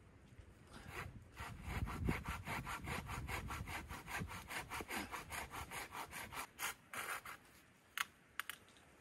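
Hand saw cutting a wooden pole with quick, even back-and-forth strokes. The sawing stops about seven seconds in, and two short strokes follow near the end.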